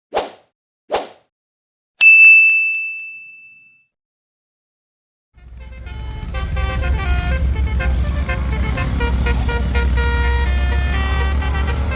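Two quick whooshes and a single ding that rings out. Then, about five seconds in, a bus's basuri horn starts playing a melody of many changing notes over the steady low rumble of the engine.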